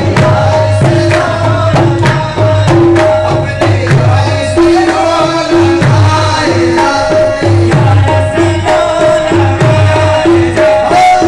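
Live qawwali music: a harmonium holds and repeats a short melodic phrase over a steady tabla rhythm.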